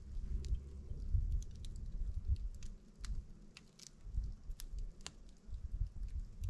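Small wood campfire crackling, with scattered sharp pops and ticks at irregular intervals over a low rumble.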